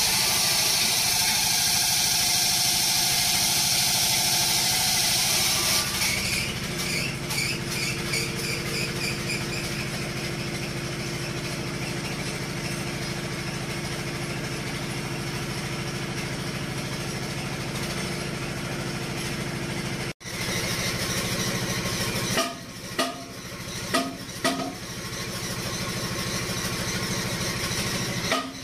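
Foton dump truck's diesel engine idling steadily, under a loud hiss for the first six seconds or so. The sound breaks off briefly just after twenty seconds, then several sharp clicks and knocks come near the end.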